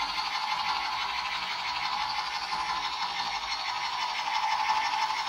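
Toy pistol's electronic sound effect playing as one steady, unbroken sound.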